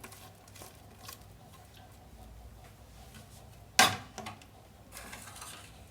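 Faint handling of ingredients and utensils over a mixing bowl, with light scattered clicks and one sharp knock about four seconds in.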